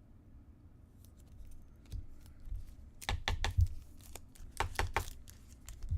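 Foil trading-card pack wrapper being torn open and crinkled: a string of sharp, irregular rips and crackles starting about a second in.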